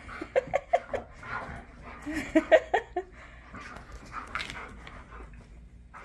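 Dog giving short, high excited whines and yips in two quick clusters, about half a second in and again from about two to three seconds in.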